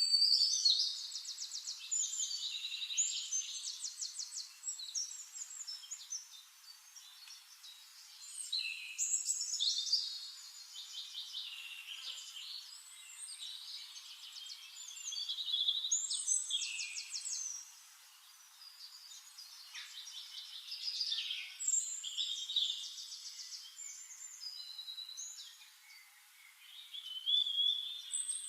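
Songbird singing long, varied phrases of fast trills and whistles, a new phrase starting every six to eight seconds.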